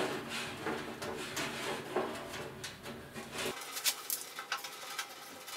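A few sharp clicks and taps of metal and plastic as a push-button igniter is handled and seated in a gas grill's steel control panel, over a low hum that cuts off abruptly partway through.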